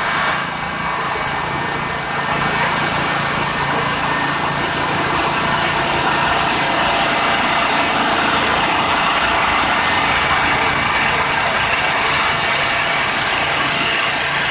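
Portable generator engine running steadily: a constant engine drone with a low hum under it.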